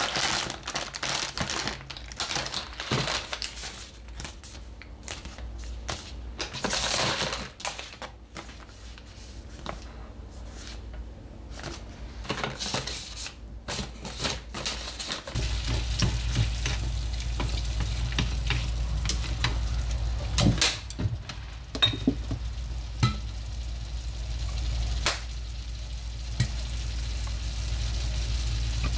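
Tissue paper and a paper gift bag rustling and crinkling as they are handled and packed. About halfway through this gives way to a steady low hum with a few metal clicks from a stir-fry cooking in a stainless steel frying pan.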